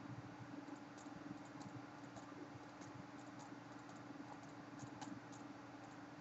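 Faint steady electrical hum with scattered, irregular light clicks and ticks.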